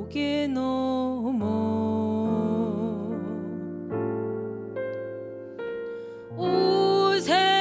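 A woman singing slow, long-held notes in Korean traditional vocal style, shaking and bending the pitch, over sustained stage-piano chords; the voice swells louder near the end.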